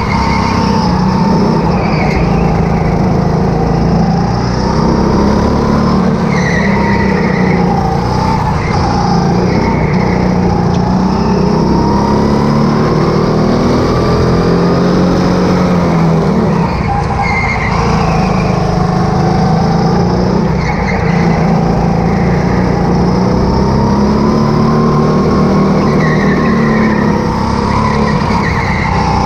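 Go-kart motor heard from on board, its pitch rising and falling as the kart speeds up on the straights and slows for the corners, with short tyre squeals in the turns.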